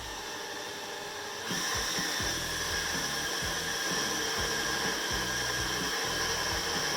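Sealey SMS2008 bench drill bit sharpener running, its 80 W motor and grindstone giving a steady whine that grows louder and brighter about a second and a half in.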